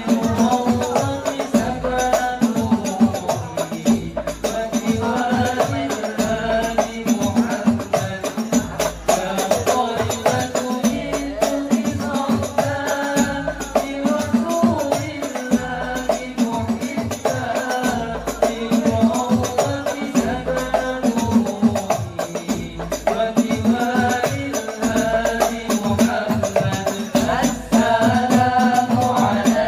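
Al Banjari ensemble: a young male voice singing a sholawat-style devotional song through a microphone, over the steady, even beat of banjari frame drums (terbang).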